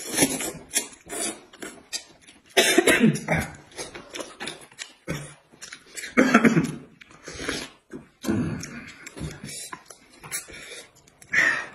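Noodles being slurped from bowls of soup: repeated noisy slurps in bursts every couple of seconds, the loudest about three and about six seconds in.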